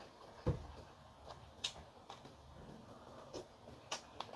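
A person eating on a close microphone, with scattered short wet mouth clicks and smacks of chewing. A dull knock about half a second in is the loudest sound.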